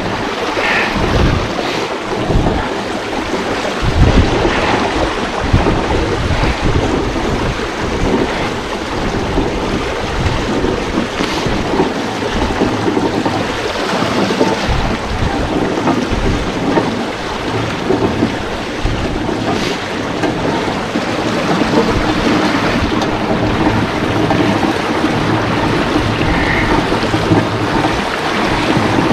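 Millstream water rushing and splashing through a water wheel in a steady loud roar, with irregular low thumps.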